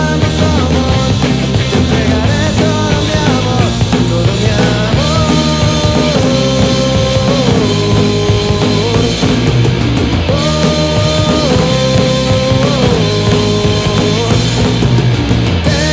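Recorded rock song with a full band playing loudly; over the steady bass and drums a lead line holds long notes that slide up and down between pitches.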